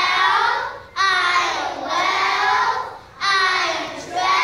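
A group of preschool children singing in unison, in short phrases with brief breaks between them.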